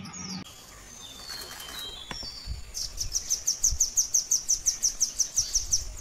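Velvet-fronted nuthatch calling: a few short high whistled notes, then a fast run of sharp, high chips, about seven a second, for about three seconds.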